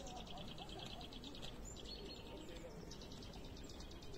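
A small songbird singing two rapid, high trills, each a string of quick chirps lasting about a second and a half, over faint background noise.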